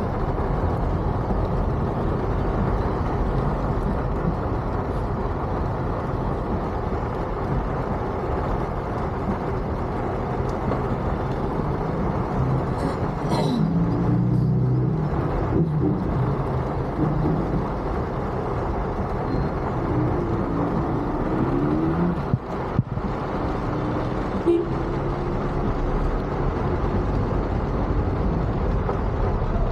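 Steady road-vehicle and traffic noise in heavy traffic. A few brief pitched sounds come about halfway through and again later.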